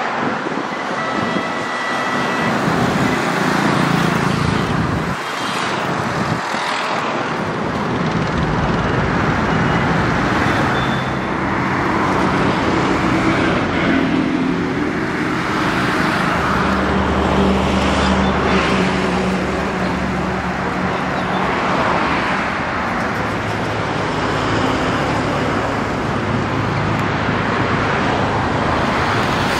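Diesel tractor engines running in a slow-moving convoy, with road traffic noise. From about eight seconds in, a steady low engine hum from a tractor close by comes up under the traffic.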